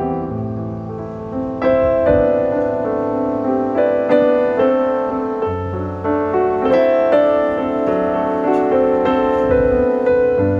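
Background piano music: a slow melody of struck notes over held low notes.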